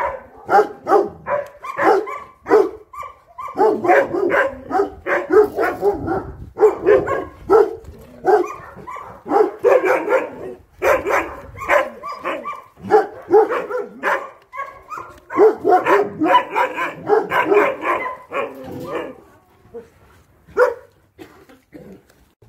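Caucasian shepherd dogs barking in rapid, near-continuous volleys, thinning to a few scattered barks near the end.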